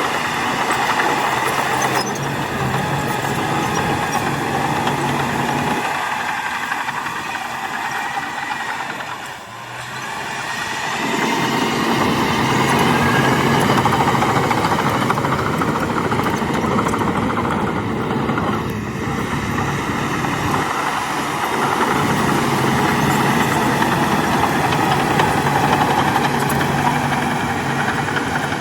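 Shantui DH17 C2 bulldozer's diesel engine running steadily under working load, pushing soil. The sound dips briefly about nine seconds in and then rises again.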